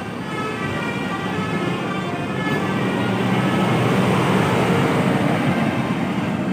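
Bus telolet horn sounding several steady tones at once, siren-like, over the noise of the bus, which swells up in the middle and eases off toward the end.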